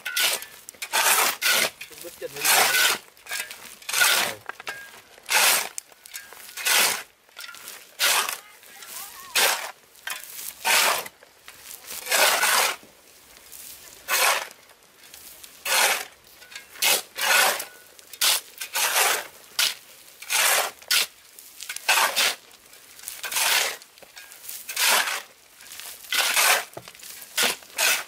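A hand tool working wood in repeated rasping strokes, roughly one a second and unevenly spaced.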